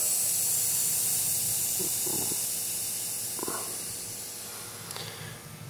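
Compressed air hissing from a DVAir 5 hp vertical air compressor, fading steadily. The tank is at its pressure-switch cut-out, just under 150 PSI.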